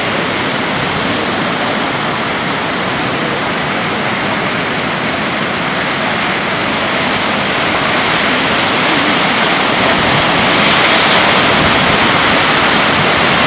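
Heavy ocean surf breaking and washing in, a steady rush of white water that grows louder about eight seconds in.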